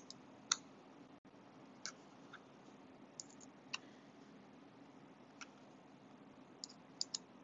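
Light, irregular clicks and taps of small knife parts (pins, the carbon-fibre handle scale and the metal frame) being handled and fitted together while a framelock pocketknife is reassembled, about a dozen in all, over a faint steady hum.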